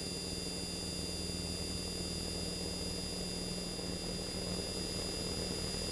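T-28 Trojan's radial engine and propeller droning steadily, heard from inside the cockpit, with a thin high whine held over it.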